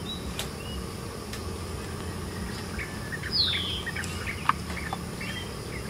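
Birds chirping over a steady insect drone, with one clear downward-sliding whistled call a little past halfway. A short sharp click follows soon after.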